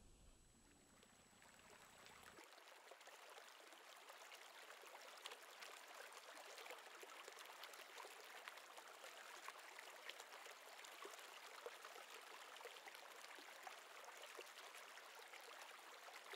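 Faint running water: a steady hiss with many small crackles, a little louder from about two seconds in.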